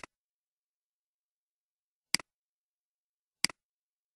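Computer mouse button clicked three times: at the start, about two seconds in and a second after that. Each is a sharp press-and-release double click with dead silence between.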